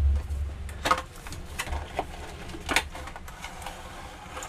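Cardboard box and plastic packaging tray being handled: a series of short knocks, taps and rustles as the box is turned over and the tray slides out.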